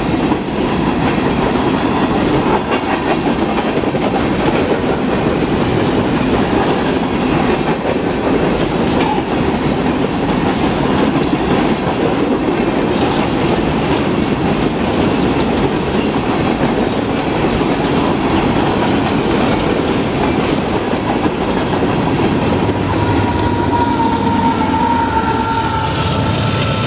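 Empty coal hopper cars of a freight train rolling past close by: a steady rumble of steel wheels on rail with clickety-clack over the rail joints. Near the end a diesel locomotive at the rear of the train comes up, adding a steady engine drone and a whine.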